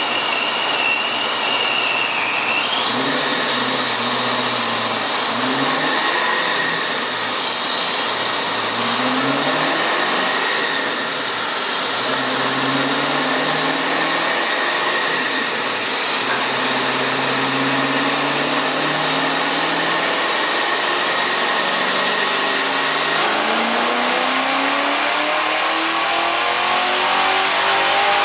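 Fox-body Ford Mustang LX engine running on a chassis dyno. The revs climb and fall back several times, with a high whine rising along with each climb, then it makes one long pull with the pitch rising steadily over the last five seconds.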